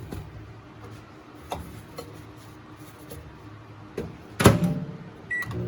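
Microwave oven being loaded: a few light knocks and clicks as the meal goes in, then the door shut with a loud clunk about four and a half seconds in, followed by a short keypad beep near the end.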